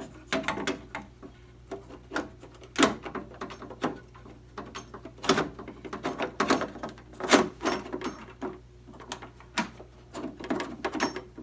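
Irregular metal clicks, knocks and rattles as a 1965 Mustang's door latch assembly is worked back into the hollow steel door, a few louder knocks standing out among lighter clinks.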